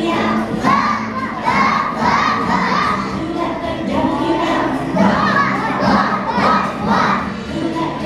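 A group of young children singing loudly together, close to shouting, in a steady rhythmic chant.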